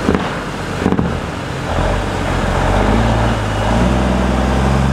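Peterbilt 379 semi's Cummins N14 inline-six diesel pulling through a shallow creek crossing, growing louder as the truck comes closer, over the steady rush of water and tyre spray. Two sharp knocks in the first second.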